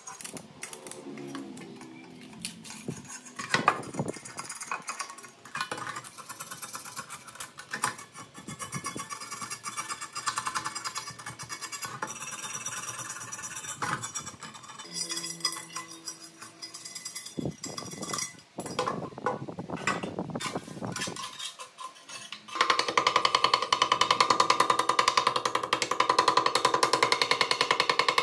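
A steel scraper blade scratching and clicking as it lifts flaking paint and corrosion off an aluminium motor housing. About 22 seconds in, a louder rapid run of hammer strikes begins, a pointed chipping hammer knocking rust scale off a cast-iron saw base.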